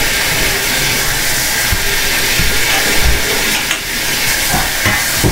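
Steady hissing noise with a few soft, low knocks scattered through it.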